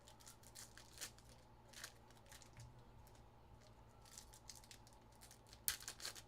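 Faint handling noises, light rustles and scattered clicks, with a small flurry of sharper clicks near the end, over a faint steady hum.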